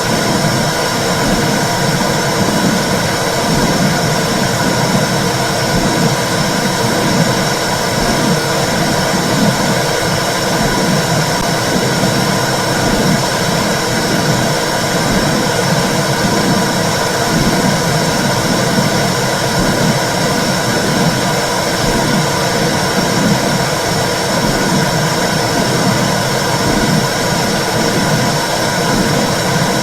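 Recorded womb sound for soothing babies: a steady whooshing rumble of noise with a faint steady hum on top, churning unevenly in the low range without a break.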